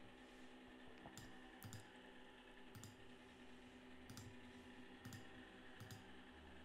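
About six faint, sharp clicks of a computer mouse and keyboard, spaced irregularly, as a block of script text is selected, copied and pasted, over near-silent room tone.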